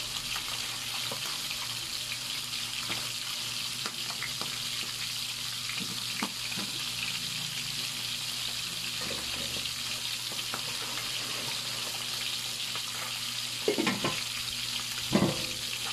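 Salmon head pieces pan-frying in oil with a steady sizzle and light crackling, with two louder knocks near the end.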